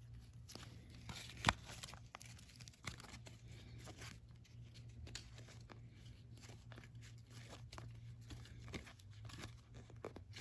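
Thin cardboard trading cards being flipped through by hand: a run of light sliding and flicking rustles, with one sharper snap about a second and a half in, over a low steady hum.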